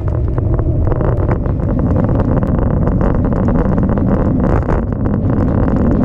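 Heavy wind buffeting the microphone of a camera on a mountain biker riding fast downhill, with frequent sharp clicks and knocks from the bike rattling over the rough road surface. The wind noise stops suddenly just after the end.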